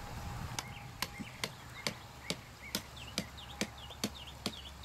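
Hand hammer striking the top of a stake to drive it into the soil, making a hole for a tensiometer. The blows fall at a steady pace of about two a second, starting just after the beginning.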